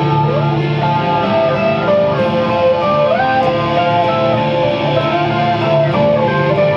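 An acoustic guitar and an electric guitar played together, with no singing. Long held notes step and slide from pitch to pitch over the acoustic guitar's strumming.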